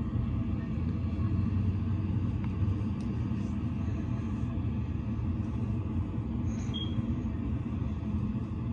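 Steady low rumble, with a faint high squeak about seven seconds in.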